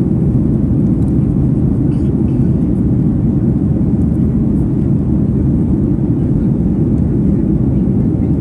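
Steady low roar inside the cabin of a Boeing 737 MAX 9 in flight: its CFM LEAP-1B engines and the rush of air over the fuselage, heard from a window seat.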